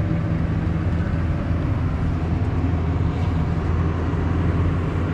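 Tractor engine running steadily, heard from inside the cab.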